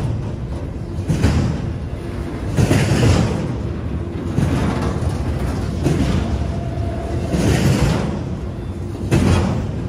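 Double-stack intermodal freight train rolling past close by: a steady rumble and clatter of steel wheels on rail that swells about every second and a half as each car's wheel trucks pass.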